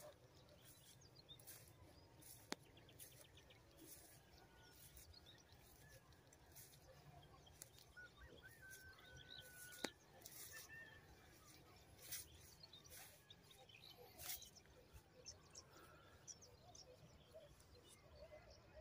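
Near silence: faint open-field ambience with scattered short, high chirps and two sharp clicks, one about two and a half seconds in and one near ten seconds.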